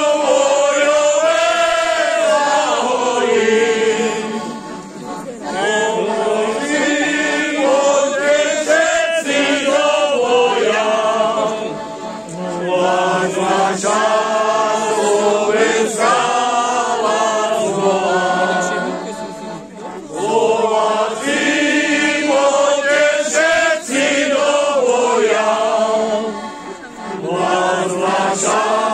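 A group of men and women singing a folk song together in unison, accompanied by a small diatonic button accordion (heligónka). The song goes in sung lines with short breaks between them.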